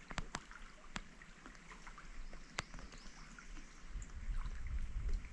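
Canoe paddling: water trickling and swirling off the paddle, with a few sharp knocks scattered through, and a low rumble in the last second or so.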